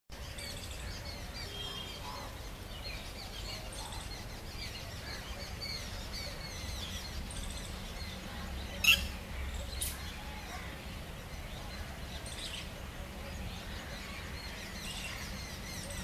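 Several birds chirping and calling here and there, short high notes scattered throughout over a low steady background rumble. One sharp, loud sound stands out about nine seconds in, with a fainter one a second later.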